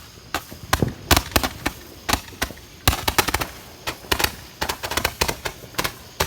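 Multi-shot firework cake firing, a rapid, irregular string of sharp cracks and bangs, several a second.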